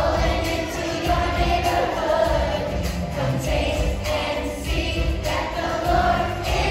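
Children's group singing an upbeat song along with backing music that has a steady beat.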